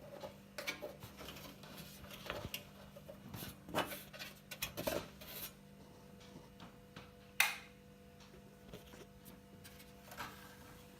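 Hands handling an opened desktop computer and its parts: scattered clicks, light clatter and rubbing, with one sharp click a little past seven seconds, over a steady low hum.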